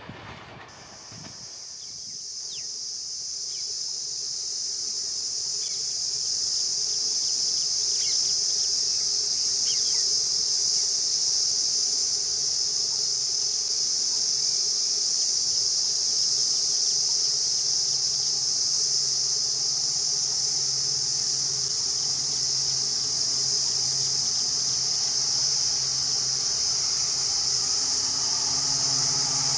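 Insects buzzing steadily and high-pitched throughout. From about two-thirds of the way in, the low hum of an approaching diesel locomotive engine grows in underneath.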